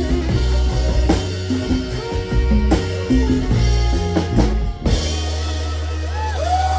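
Live soul band playing the closing bars of a song: drum kit hits over a steady bass line, ending on a final hit about five seconds in. A low bass note then rings on, and a high note slides up and holds near the end.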